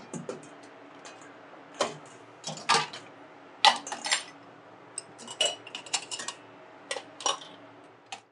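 Dishes and metal utensils clinking and clattering in a commercial kitchen: irregular sharp knocks, several of them loud, over a steady low hum. The sound fades out at the very end.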